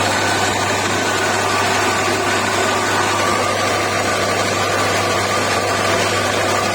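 Stainless-steel skin-separating (husking) machine running steadily under power: an even, loud mechanical noise with a constant low hum and a faint steady whine above it.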